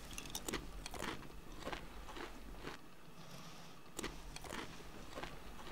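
Toothpick working between teeth: a run of irregular short clicks and scrapes close to the mouth.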